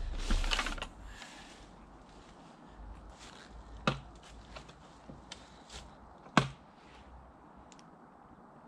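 Gear being handled in a bicycle pannier bag: a burst of rustling in the first second, then scattered sharp clicks and taps, the two loudest about four and six and a half seconds in.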